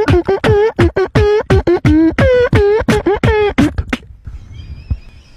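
Beatboxing-style vocal sound effects: a voice making a rapid string of short, pitched mouth sounds with thumps, about four a second, that stops about four seconds in.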